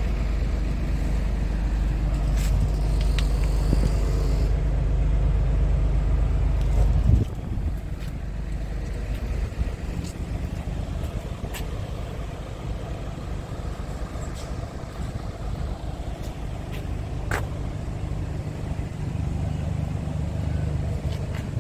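Scania G450 truck's diesel engine idling: a steady low rumble that drops in level about seven seconds in, with a few light clicks and knocks.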